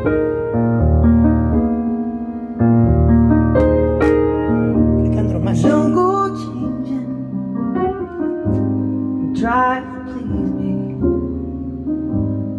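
Recorded music from a CD playing through Quad ESL-57 electrostatic loudspeakers, picked up by a microphone in the room: held keyboard chords over a steady bass, with a wavering melody line that comes in about halfway and again near the end.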